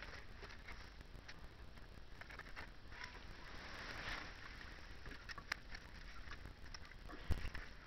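Faint rustling and small clicks of a thin beer-can aluminium wind shield being handled and set around a small burner in grass, with a sharper click about five and a half seconds in and a few low thumps near the end.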